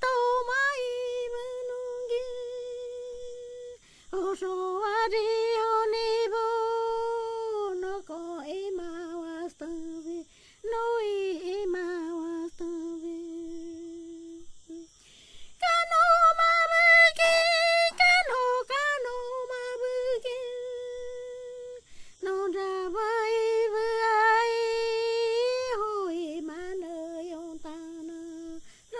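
A woman's voice singing or humming a slow unaccompanied melody in long held notes that waver and glide in pitch, phrase after phrase with short pauses between.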